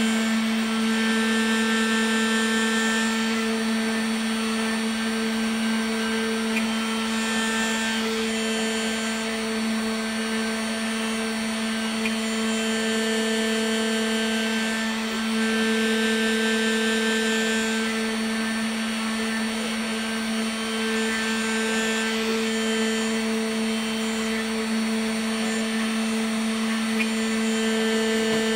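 Homemade CNC router's spindle motor running with a steady hum while its end mill cuts into a block of carving wax. Higher whines come and go every few seconds as the machine moves the cutter.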